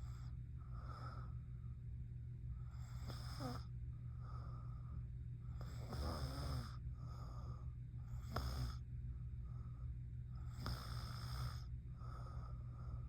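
A sleeping woman snoring in a slow, even rhythm: about four snores, each followed by a softer breath, over a steady low hum.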